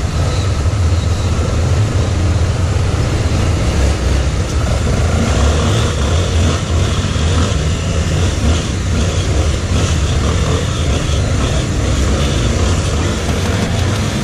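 Motor vehicle running: a steady, loud low rumble with no clear rise or fall in pitch.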